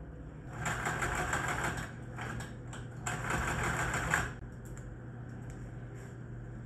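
Sewing machine stitching in two quick runs, each a little over a second, with a couple of short bursts between them, over a steady low hum.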